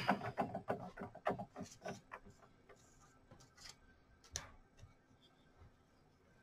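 A quick run of light clicks and knocks from small craft tools being handled on a tabletop, thinning out after about two seconds to a few sparse taps.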